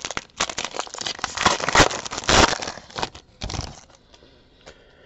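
Crinkling and tearing of a baseball card pack's wrapper being opened: dense crackling, loudest about two seconds in, dying away near the end.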